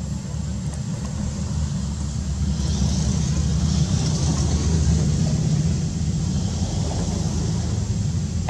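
A motor vehicle running close by: a steady low engine rumble that swells with a rush of hiss between about three and six seconds in, as if it passes.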